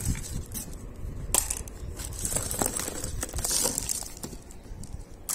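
A hand rummaging through a cardboard box of odds and ends: glass marbles clicking against each other and the contents shifting in scattered, irregular clicks, with a crinkle of plastic bag a little past the middle.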